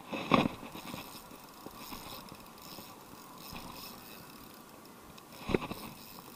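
Two brief knocks about five seconds apart, from the action camera being handled, over a faint steady background hiss.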